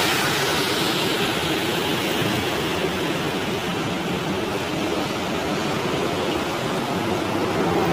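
City traffic on a wet road: a steady hiss of car tyres on wet pavement, a little louder at the start as a car passes close by.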